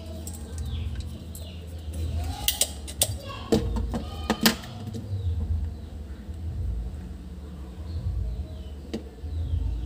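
Spring-loaded desoldering pump (solder sucker) snapping as it is fired against a circuit board to suck molten solder off a charging socket's joints: several sharp clicks about two and a half to four and a half seconds in, over a steady low hum.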